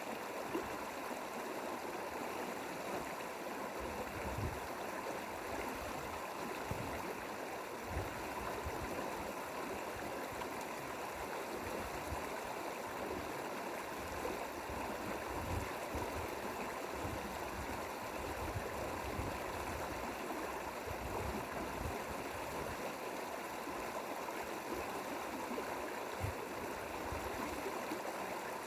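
Mountain stream water flowing steadily, an even rushing wash with small irregular low pulses in the flow.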